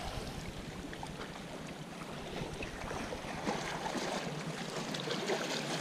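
Sea water washing against the rocks of a breakwater, with wind on the microphone: a steady, fairly quiet wash with no clear rhythm.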